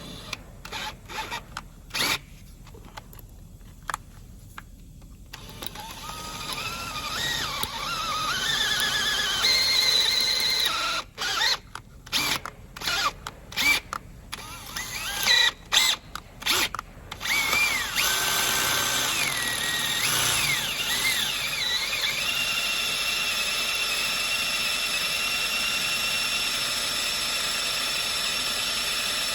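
Electric hand drill boring a 5.5 mm bit into a snapped bolt, the bit squealing against the metal as it cuts. The drill runs in short stop-start bursts at first, then runs steadily through the second half with a high, held squeal.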